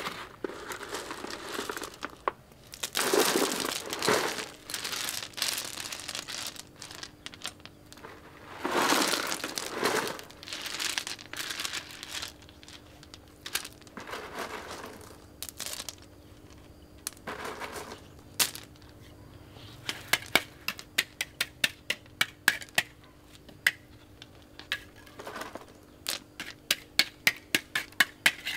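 Crinkling, rustling handling noise in several separate bursts, followed from about two thirds of the way in by a run of quick, sharp light taps, a few a second.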